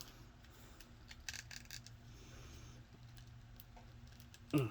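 Small clicks and rubs of hard plastic as an action figure's head is pulled off its neck peg and another head is pushed on, with a run of sharp clicks about a second in. A brief low voice sound, like a short grunt, near the end is the loudest thing.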